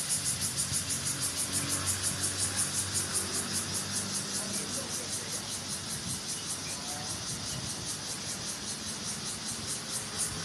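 High-pitched insect drone that pulses evenly about five times a second, over a low steady rumble.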